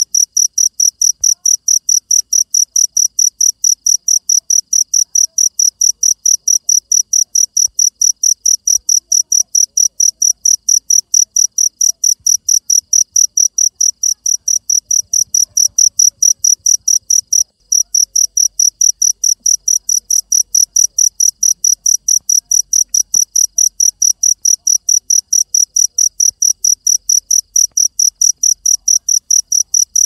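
A cricket chirping steadily in a fast, even trill of high chirps, about four a second, with one short break about halfway through.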